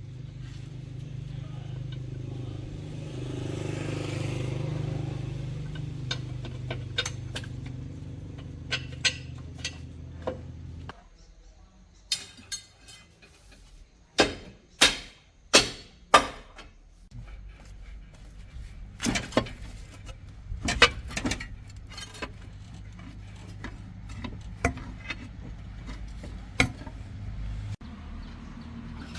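A truck engine running with a steady low hum that cuts off suddenly about eleven seconds in, followed by a series of sharp metal clanks and knocks, four loud ones in quick succession, then more scattered clanks over a faint low hum.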